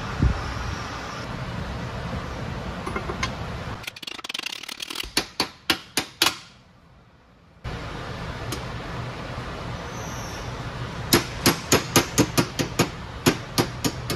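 Hammer striking steel as bearing races are tapped into their bores in an Eaton Fuller 13-speed transmission's auxiliary housing, seated only part way so they wedge. Two runs of quick sharp taps, about eight in the first, then about three to four a second near the end.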